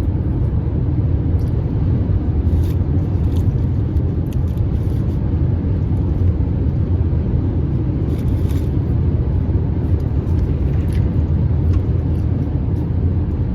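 Steady low rumble of a car's road and engine noise, heard from inside the cabin of the moving car.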